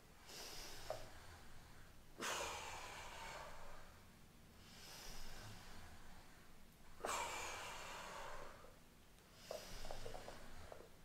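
A woman's audible breathing during ab wheel rollouts, paced with the reps: she breathes in going forward and out coming back. There are five breaths about two seconds apart, two of them louder with a sudden start, about 2 and 7 seconds in.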